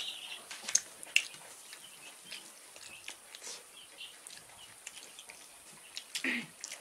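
Eating sounds of people eating rice and curry with their hands: scattered soft clicks and smacks from mouths and fingers, with a few faint bird chirps in the background. A short vocal sound comes about six seconds in.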